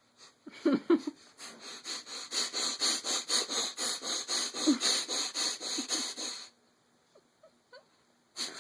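A person making loud, rapid sniffing breaths in quick, even huffs for about six seconds, then stopping abruptly.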